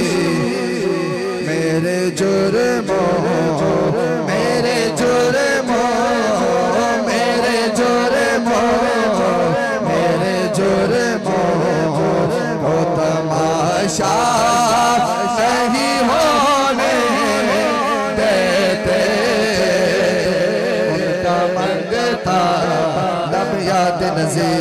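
A man singing a naat, an Urdu–Punjabi devotional song in praise of the Prophet, through a microphone and PA system, in long drawn-out phrases with heavy vibrato over a steady low drone.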